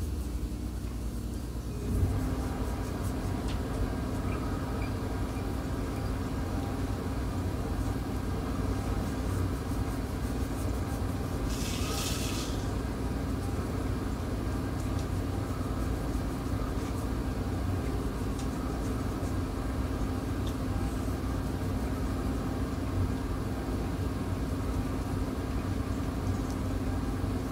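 A machine running with a steady low rumble and a constant hum. It starts at the outset and grows louder about two seconds in. A brief hiss comes near the middle.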